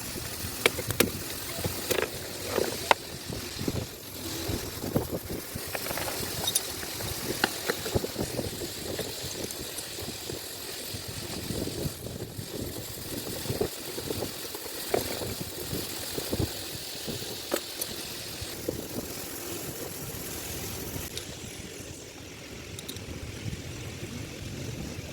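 Scattered sharp metallic clicks and knocks of rigging hardware and tools being handled while a turnbuckle is fitted on a sailboat stay, over a steady engine-like background rumble. The clicks thin out about three-quarters of the way through.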